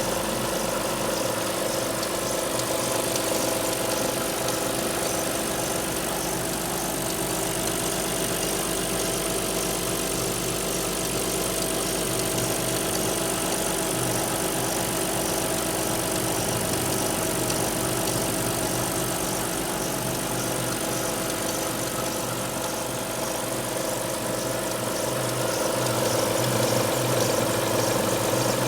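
Alfa Romeo 156's V6 engine idling steadily from a cold start, running with the abnormal noises that show up when cold.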